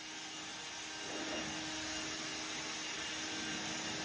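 EGO 765 CFM battery-powered leaf blower running steadily: a full rush of air with a low steady hum under it.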